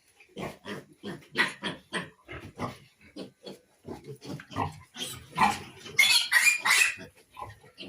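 Piglets grunting in many short grunts, several a second, breaking into loud, shrill squeals about five seconds in for around two seconds.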